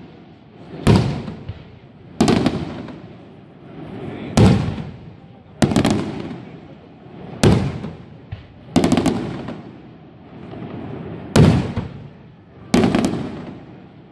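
Aerial firework shells bursting overhead: about eight loud bangs, one every one to two and a half seconds, each followed by a rolling echo.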